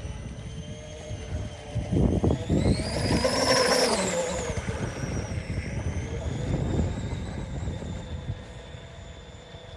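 Scratch-built 1/12 scale Miss England radio-control model speedboat running at speed, giving the high whine of its scale V-drive gears. The whine rises in pitch and loudness as the boat passes close by about three to four seconds in, then falls and fades as it runs off. Wind buffets the microphone throughout.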